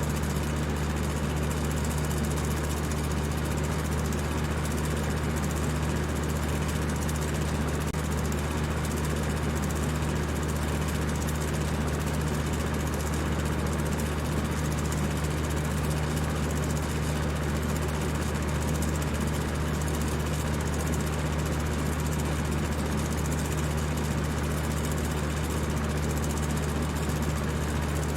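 Electric fan running at high speed: a steady whir of rushing air over a low motor hum, unchanging throughout.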